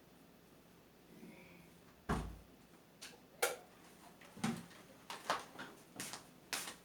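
A dull thump about two seconds in, followed by a run of irregular sharp clicks and knocks, like small objects or a door or drawer being handled.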